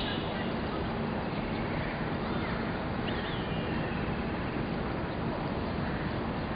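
Steady wind noise on the microphone, with faint distant voices.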